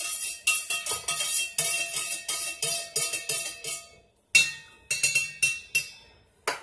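A metal spoon clinking over and over against the side of a cup while stirring: about three ringing clinks a second, each at the same pitch, with a brief pause about two-thirds of the way through.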